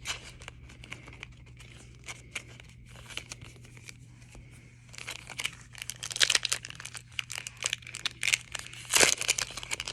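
Hockey card pack wrapper being torn open and crinkled, with light cards-handling clicks at first, then dense tearing and crinkling from about five seconds in.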